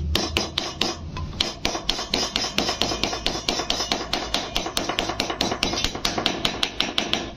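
A small hammer taps lightly and quickly, about five strokes a second, on a new ball bearing to drive it into the hub of a pedestal fan motor's metal end cover, seating it evenly in its housing.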